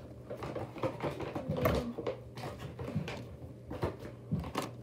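Handling noise: soft, irregular knocks and rustles as squishy toys are moved about close to the microphone, with a louder thump about a second and a half in, over a faint steady low hum.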